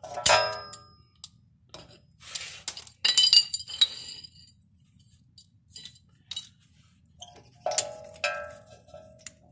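Rear parking-brake shoes and their steel springs clinking as the shoe assembly is worked out of the drum in the rotor hat. There are several sharp metallic clinks, some ringing briefly, with quiet gaps between them.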